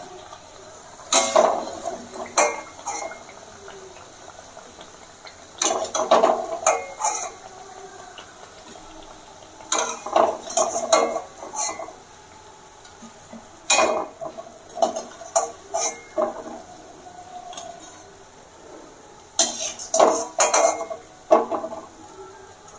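Perforated steel frying spoon clinking and scraping against a metal kadai as fritters are lifted out of the hot oil. The clatter comes in short spells every few seconds.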